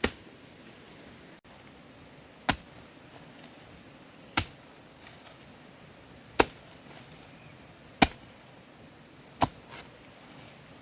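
Six sharp strikes, one every one and a half to two seconds, each a short crack that dies away quickly, like a blade or tool hitting wood.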